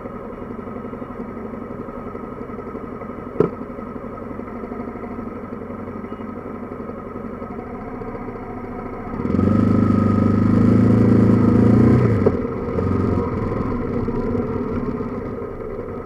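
Single-cylinder motorcycle engine running steadily at low revs, with one sharp click a few seconds in. Just past halfway it revs up and pulls away louder for about three seconds, then settles back to a lower, steady running.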